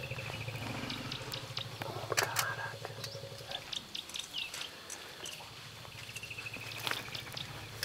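African elephant herd feeding at close range: scattered crunching and snapping as they eat wild mangoes and vegetation, over a low steady hum that fades out mid-way and returns. A bird trills briefly near the start and again near the end.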